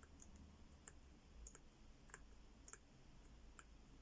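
Faint, spaced clicks of a Desired Tools four-wheel combination padlock's number wheel being turned one digit at a time, about six clicks. The shackle is held under tension so that the wheel at the right number will go stiff, the indirect method of decoding the code.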